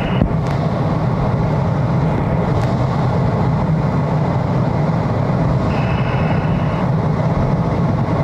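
Steady in-flight noise of a jet aircraft, engine and rushing air heard from on board as an even low rumble, with a faint higher hiss joining briefly about six seconds in.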